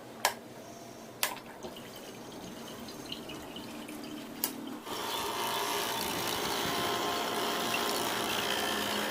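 A few sharp clicks, then water running steadily for about four seconds and stopping abruptly.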